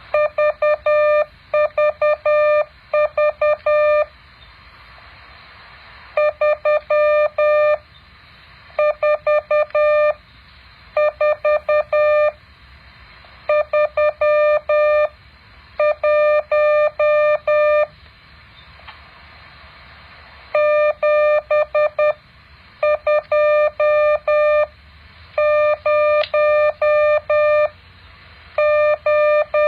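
Morse code practice tone: a single steady beep keyed on and off into dots and dashes, sent in groups of characters with pauses of about a second or two between them, over a faint hiss.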